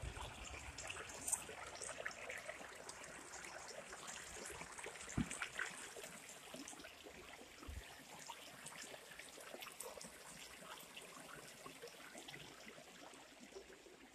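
A small stream trickling, a faint steady wash of water with fine crackling detail. A couple of brief low thumps sound about five and about eight seconds in.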